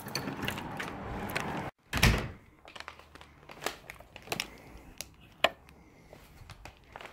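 Front door being unlocked and opened: rattling of keys and the brass doorknob with small clicks, then a short break and a thump about two seconds in. After that come a few faint clicks.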